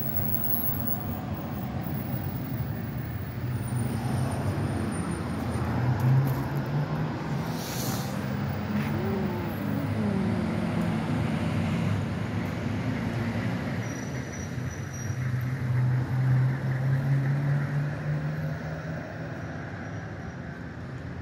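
Street traffic: a steady hum of car engines and tyres, with one vehicle passing about nine seconds in, its pitch dropping as it goes by.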